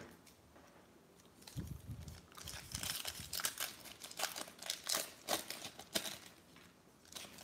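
Plastic wrapper of a Diamond Kings baseball card pack torn open by hand, crinkling in a dense run of sharp crackles from about a second and a half in. A single short tap right at the start.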